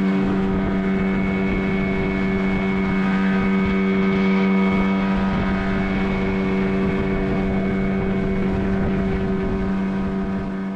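Small motorboat's engine running at a steady cruising speed: one unchanging hum, with the rush of wind and water from the hull moving at speed.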